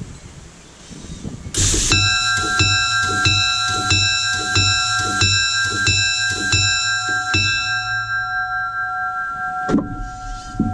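Locomotive bell rung by its newly replaced dinger motor (bell ringer actuator) on test: after a brief hiss, the clapper strikes about nine times at an even pace of roughly one and a half a second, each with a dull clunk from the mechanism, then stops and the bell rings on and fades. The new actuator is working.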